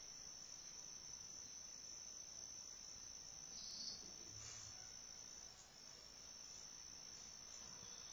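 Near silence: a steady high-pitched whine or trill throughout, with one faint, short low snore from the sleeping dog about four and a half seconds in.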